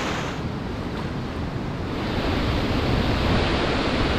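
Rushing river water with wind on the microphone. About two seconds in, it changes to the louder, steady rush of a whitewater rapid.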